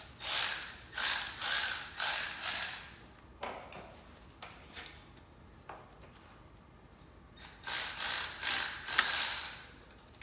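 Hand ratchet wrench being worked in short rasping strokes: a run of four or five strokes in the first three seconds, a quiet spell, then another run of strokes from about seven and a half to nine and a half seconds in.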